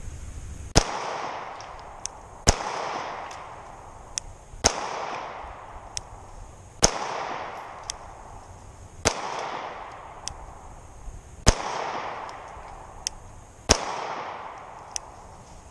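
Springfield Armory XDS 3.3 9mm pistol fired slowly for accuracy: seven loud shots about two seconds apart, each followed by a long fading echo, with fainter sharp cracks in between.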